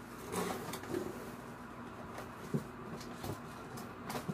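Cardboard boxes being handled: light scraping and a few short, sharp knocks as a flat box is lifted out of a larger corrugated shipping carton.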